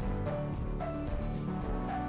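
Background music: a melody of short held notes over a steady beat.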